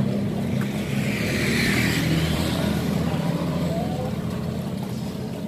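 A motor vehicle passing close by: a low engine hum with tyre and road noise that swells to a peak about two seconds in, then fades away.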